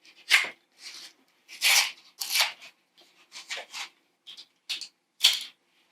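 A small package of mounting screws being cut open and handled: a series of short, irregular scraping and rustling noises, loudest just after the start and again near the end.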